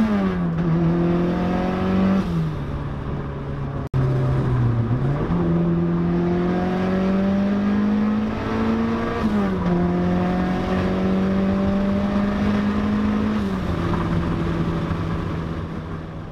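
Mazda Miata's four-cylinder engine pulling hard under acceleration, its pitch climbing steadily and then falling sharply at each upshift: right at the start, about two seconds in, about nine seconds in and about thirteen seconds in. The sound cuts out for an instant about four seconds in and fades away at the end.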